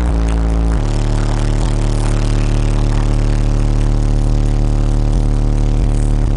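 Car audio system playing loud, sustained bass notes through subwoofers, each held steady and stepping abruptly to a new pitch about a second in.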